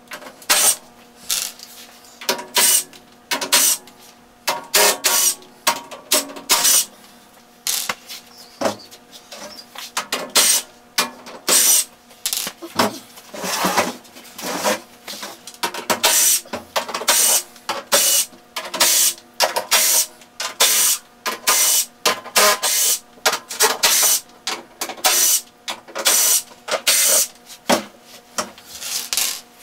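Cordless drill run in many short bursts, one after another, driving out sheet-metal screws from a furnace cabinet's panels.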